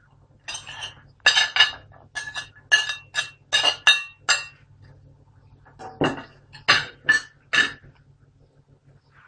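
A kitchen knife clinks and scrapes in a run of quick strokes as it pushes sliced onion and chopped garlic off a plate into a frying pan. A second, shorter run of clinks starts about six seconds in.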